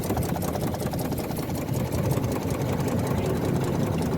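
A boat's engine idling steadily, with a fast, even beat.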